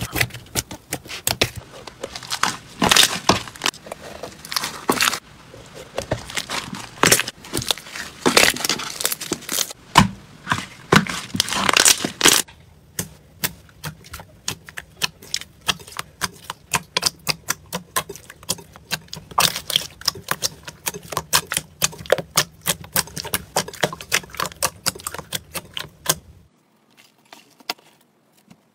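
Hands squishing and kneading soft slime, making a dense run of wet clicks, pops and squelches as trapped air bursts. The clicking turns lighter and more even partway through, then fades out near the end.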